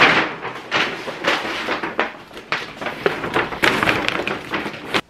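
Paper shopping bag of groceries rustling and crinkling in irregular bursts as it is handled and set down on a counter, with a sharp knock at the start; the rustling stops abruptly near the end.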